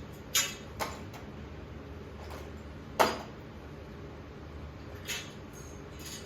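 Metal scaffolding parts clanking as they are handled and fitted together: a handful of sharp knocks, the loudest about three seconds in, over a steady low hum.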